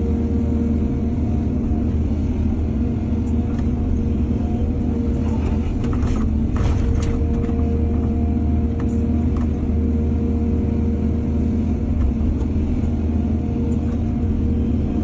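Excavator's diesel engine running steadily, with a few short knocks about six to seven seconds in.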